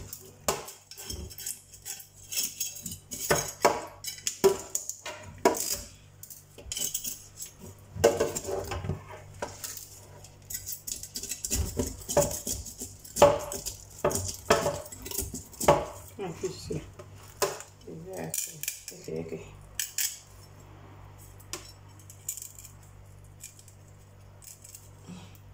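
Knife blade scraping scales off a whole tilapia in a stainless steel sink, with irregular scratchy strokes and clinks of metal against the steel. The strokes thin out to a few scattered clicks about three-quarters of the way through.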